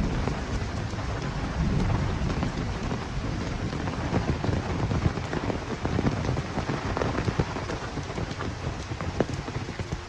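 Heavy rain pouring down, a dense steady hiss with many sharp drop hits, with a low rumble under it in the first couple of seconds that eases off.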